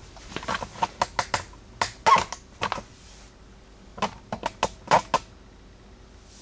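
Irregular sharp clicks and knocks of a camera being handled up close and tilted down: a dense run of them, a pause, then a shorter run.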